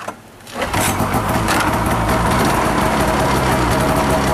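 A 2012 Arctic Cat F5 LXR snowmobile's two-stroke twin engine starts about half a second in and settles into a steady idle.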